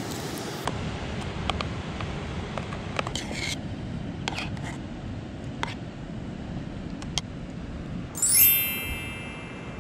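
Metal spoon stirring porridge in a camping pot, with scattered light clicks and scrapes against the pot, then a short metallic ringing clang a little past eight seconds in, the loudest sound, over steady background noise.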